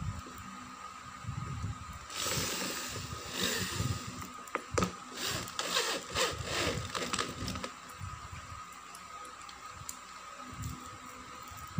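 Power drill driving screws into an office chair's armrest, run in several short bursts from about two seconds in until about seven and a half seconds, with the motor speed rising and falling.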